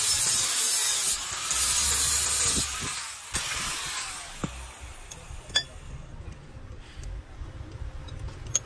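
Angle grinder cutting into a metal tube clamped in a vise, easing off briefly about a second in, then lifted off and winding down about three seconds in. After that, a few light metallic clicks and clinks of metal parts being handled.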